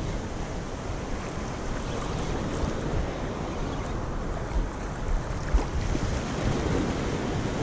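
Wind buffeting the microphone over the wash of small surf waves, a steady noisy rush heaviest in the lows with a couple of brief gusty bumps past the middle.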